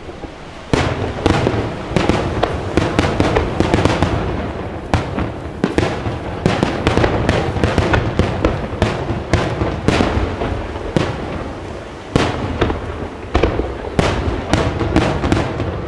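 Fireworks display: aerial shells bursting in rapid succession, a dense run of sharp bangs over a low rumble. Brief lulls come just before a big bang under a second in and again at about twelve seconds.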